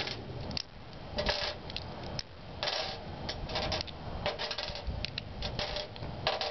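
Lego bricks being pulled apart and set down: irregular plastic clicks and rattles, several a second.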